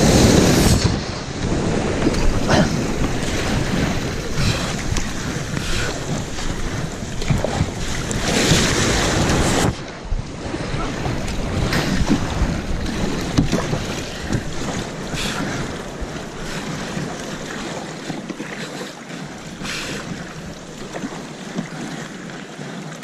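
Breaking surf rushing and splashing over and around a kayak as it is launched through the waves, with wind buffeting the microphone. A big surge of whitewater about eight seconds in cuts off abruptly; after that the water is calmer, with occasional splashes against the hull.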